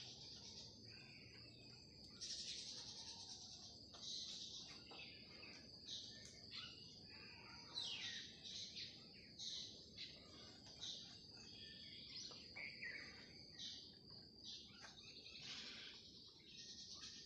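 Faint birdsong: birds chirping with short high calls every second or two over a steady high background hum.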